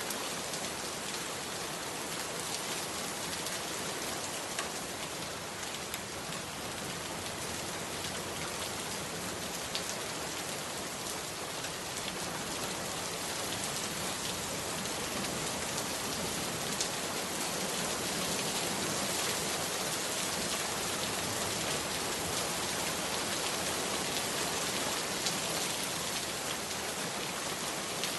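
Steady rainfall: a dense, even hiss of rain with scattered individual drop ticks, growing slightly louder in the second half.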